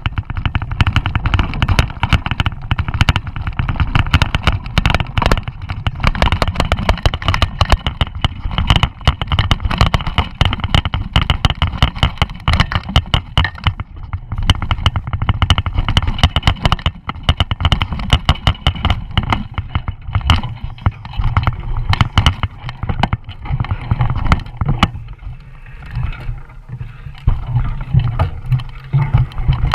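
Electric mountain bike ridden over a rough dirt trail, heard from a camera mounted on the bike: constant irregular rattling and knocking as the bike jolts over the ground, over a low rumble of tyres and wind. The rattling eases a little for a couple of seconds near the end.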